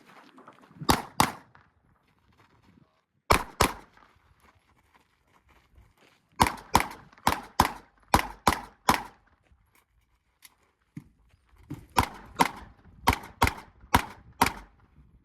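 Pistol shots fired at an IDPA stage, about seventeen in all: two quick pairs of shots, then a rapid string of about seven, a short pause, and about six more.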